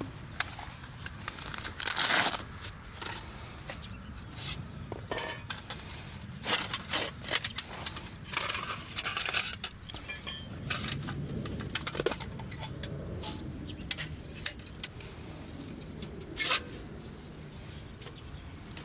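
Cooking gear being handled: irregular clinks, knocks and scrapes of utensils and cookware, the loudest about two seconds in, around the middle and near the end, over a low steady background noise.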